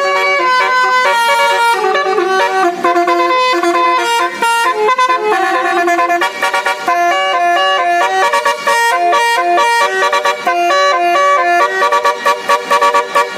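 Indonesian 'telolet' basuri bus horn playing a tune: several horn tones sound together and step up and down in quick notes, breaking into rapid even pulses near the end.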